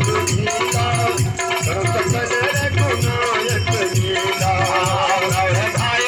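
Indian devotional folk music: an electronic keyboard carries a stepped melody over a steady dholak beat, with small hand cymbals (manjira) and rattling percussion keeping time.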